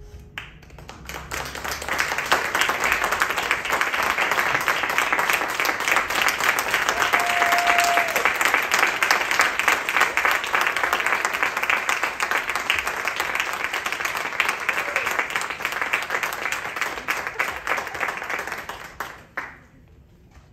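Audience applauding: many hands clapping, building up over the first two seconds, holding steady, then dying away about a second before the end.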